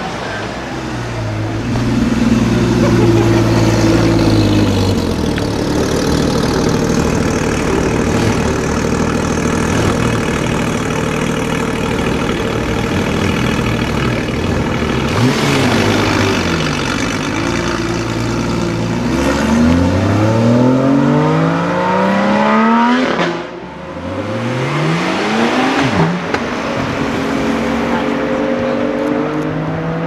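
A car's engine runs steadily at first, then accelerates hard with a rising pitch. Near the end the sound breaks off briefly, as on a gear change, then climbs again and settles.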